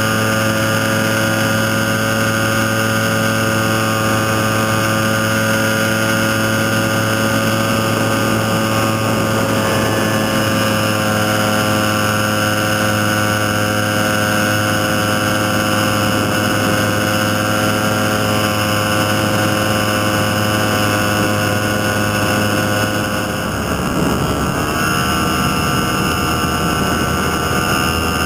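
Nanotrike's engine and pusher propeller running steadily in flight, a loud even drone. About twenty-three seconds in, the pitch dips briefly and then rises again.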